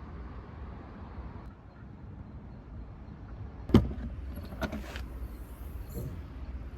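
A car's steady running noise stops about a second and a half in; a couple of seconds later a car door shuts with one loud thump, followed by a few lighter knocks.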